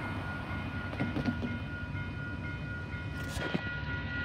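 A railway crossing's warning bell rings steadily as the signals flash, over the low rumble of an approaching Canadian Pacific train.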